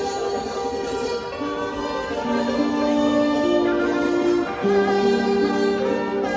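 Thai classical-style instrumental music played live by a small ensemble with a khim (Thai hammered dulcimer) and electronic keyboards. A melody of long held notes steps up and down over the accompaniment.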